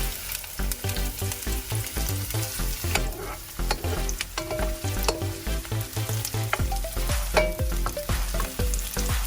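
Onion sizzling as it fries in hot oil in a wok, stirred so that short scraping clicks of the utensil against the pan come through the steady hiss.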